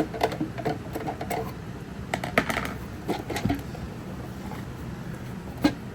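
Irregular light clicks and taps of hard plastic being handled as an old computer speaker's plastic enclosure is opened up, with a sharper knock near the end.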